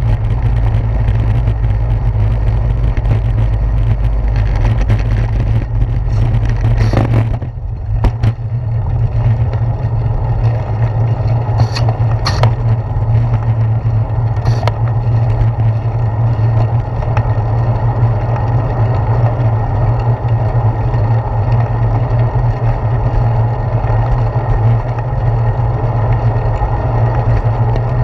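Road rumble and wind noise from a bicycle ride, picked up by a handlebar-mounted GoPro: a heavy, rattling low rumble over brick pavers that eases about seven seconds in as the bike rolls onto smoother asphalt, with a few sharp clicks later on.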